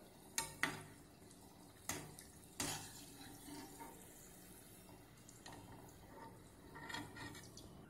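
Steel slotted skimmer knocking against a pan of hot ghee, four sharp clinks in the first three seconds, as fried modaks are scooped out. Under it, the faint sizzle of the modaks frying in the ghee.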